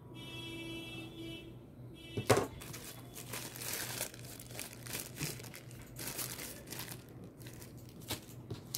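Thin plastic packaging bag crinkling and rustling as it is handled and unwrapped, after one sharp click about two seconds in.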